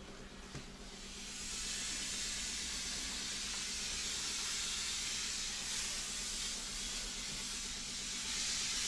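A steady hiss that comes up about a second in and then holds evenly, over a faint low hum.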